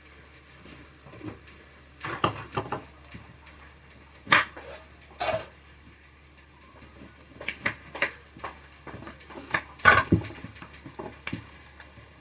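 Eating sounds: scattered short clicks, clinks and crunches as a spicy snack mix is eaten with lettuce from a dish, about a dozen separate sounds spaced unevenly.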